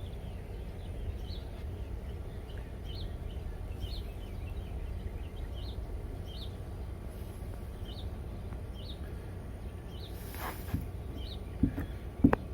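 Repeated short chirps from a small bird, about one a second, over a steady low hum. A brief hiss about ten seconds in, then a few sharp knocks near the end.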